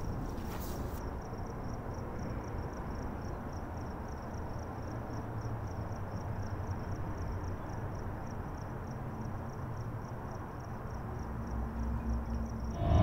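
Crickets chirping in a steady, even run of high chirps over a low rumbling drone. The rumble grows louder near the end.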